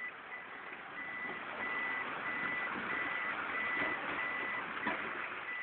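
A repeating electronic warning beep inside the cab of a Mk1 Mitsubishi Pajero, one steady high tone about three times every two seconds. Underneath is a steady rush of water and engine noise as the truck wades through the river.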